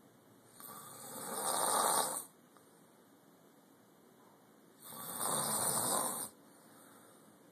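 Snoring: two long snores about four seconds apart, each ending abruptly.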